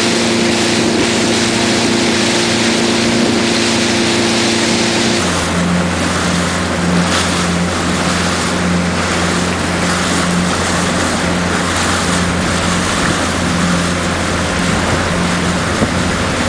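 Motorboat engine running steadily under way, with wind and water rushing past the hull. About five seconds in, the engine note drops abruptly to a lower pitch.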